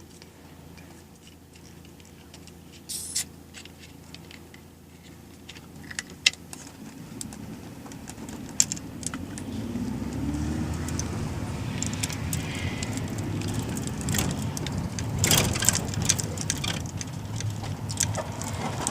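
Minibus (marshrutka) moving off: after a quiet stretch of scattered clicks and rattles, the engine and road noise build up from about halfway, with a rising engine note, and keep rattling on.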